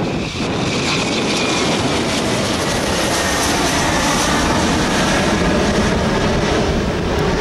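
Boeing 717's two rear-mounted Rolls-Royce BR715 turbofans at takeoff thrust: a loud, steady jet roar as the airliner lifts off and climbs out, with a faint engine whine that sinks slightly in pitch.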